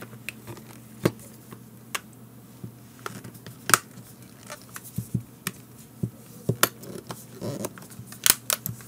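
Plastic case of a Garmin Nuvi 780 GPS being pressed shut by hand, giving a scattering of sharp clicks as the back cover's clips snap into place, the loudest about four seconds in.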